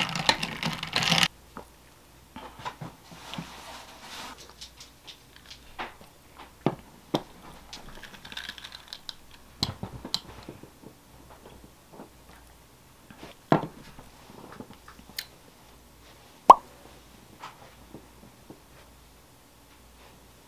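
Small handling sounds in a quiet room: a glass jar of iced milk latte and a book being handled, with scattered light clicks and taps. There is a louder burst of rustling and clatter in the first second as the jar is capped. About two-thirds through comes one sharp click with a brief ring, like glass tapped on a table.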